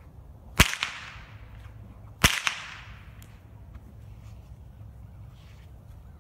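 A cow whip cracking twice, about a second and a half apart, each a sharp crack followed by a fading echo.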